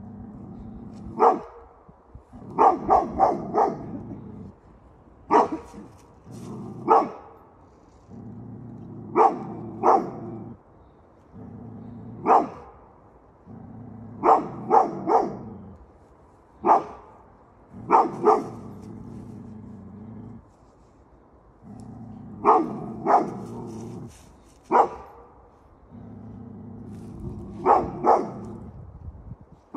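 A Beauceron barking repeatedly at the white-draped figures ahead of it, in single barks and quick runs of three or four, with low growling between the barks.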